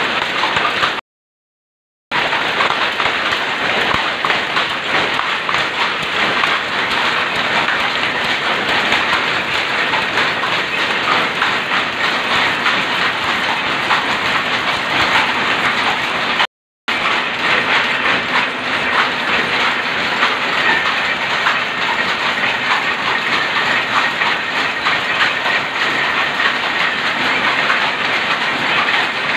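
Shuttle loom converted to rapier weaving, running at speed on plain-weave cloth: a loud, steady, dense mechanical clatter of fast repeated strokes. The sound cuts out abruptly for about a second near the start and again very briefly around the middle.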